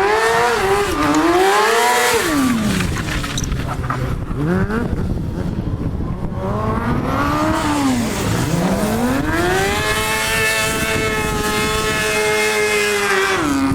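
A sport motorcycle engine revving hard, its pitch falling and rising several times. The revs are then held high and steady for a few seconds before dropping off near the end, as in stunt riding.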